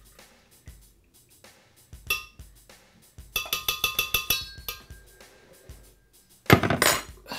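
Background music with a steady drum beat. Midway a metal spoon clinks rapidly against the glass blender jar and pour-over dripper for about a second and a half, and near the end comes a short, loud clatter.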